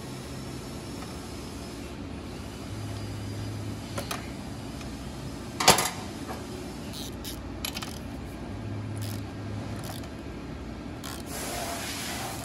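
Metal hand tools clinking and scraping against steel while bolts are worked on a motorcycle frame, with one sharp clink about halfway through and a few lighter ones, over a steady low hum.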